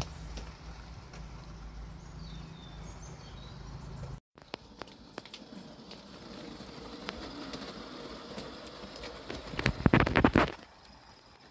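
Model garden-railway locomotive and coaches running on track, wheels clicking over the rail joints, with a low steady hum that stops suddenly about four seconds in. Around ten seconds in comes a loud rapid clatter lasting under a second as the train comes off the steel girder bridge close by.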